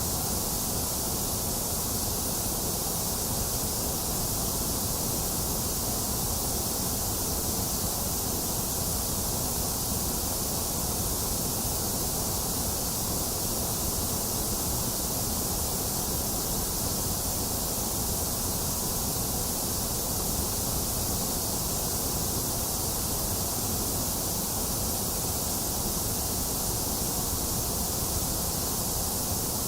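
Box fan running steadily, mixed with the even hiss of rain; the sound stays the same throughout.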